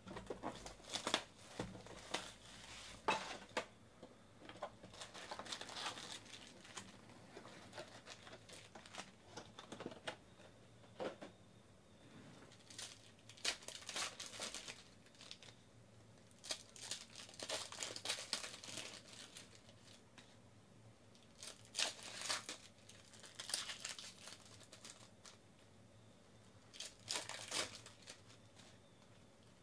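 Foil trading-card packs being torn open and their wrappers crinkled by hand, in irregular bursts of tearing and rustling with short quiet gaps between them.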